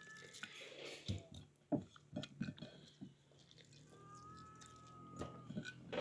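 Faint wet squelching and crunching of bare hands squeezing water out of grated raw cauliflower, with scattered small knocks and clicks.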